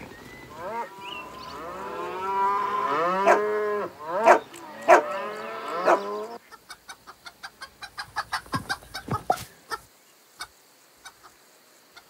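Several cows mooing at once in long, overlapping, bending calls, with a few sharp clicks among them. About six seconds in the mooing stops and hens cluck in a quick run of short clucks that thins out.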